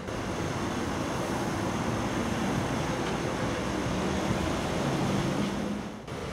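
Steady outdoor street ambience with a low rumble of road traffic. It drops out briefly about six seconds in.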